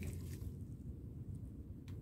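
A steady, quiet low rumble, with one faint metallic click from a wrench on a trailing-arm bolt near the end.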